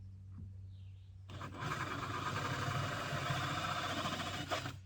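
Electric drill driving a hole saw into wood, a steady cutting grind with a motor whine. It starts about a second in and stops shortly before the end.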